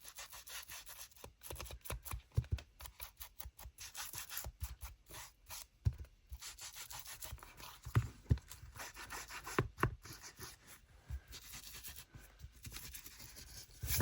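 Distress ink being rubbed onto the edges of paper: quick short rubbing and scraping strokes, one after another, with a few light knocks in between.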